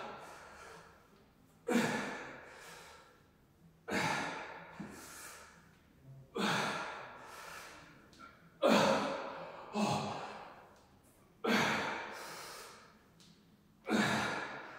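A man breathing hard while doing dumbbell goblet squats: a forceful exhale with each rep, about one every two seconds, each fading quickly.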